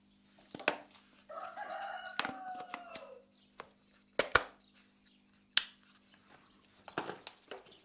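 Sharp clicks and knocks of a plug and cable being handled and plugged in, the loudest just after four seconds and at about five and a half. About a second in, a bird gives one long call of about two seconds that falls in pitch at the end, over a faint steady low hum.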